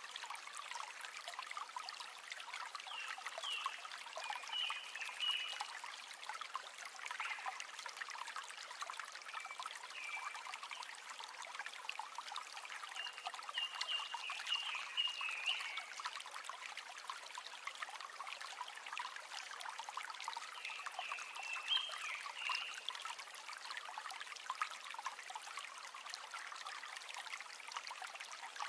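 River water running and trickling steadily over stones, with many small splashes and gurgles. A few short, high-pitched notes rise over it now and then.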